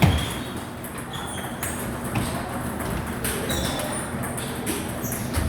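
Table tennis balls clicking off paddles and the table in a rally, with more ball clicks from other tables around, the loudest hit just at the start.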